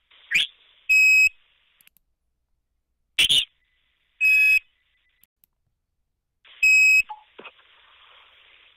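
Odd electronic tones on a voicemail recording heard over a phone line: three loud high beeps about three seconds apart, with short sweeping chirps between them. After the last beep comes a faint, scratchy, garbled stretch. The uploader suspects such noises may be a sign of wiretapping.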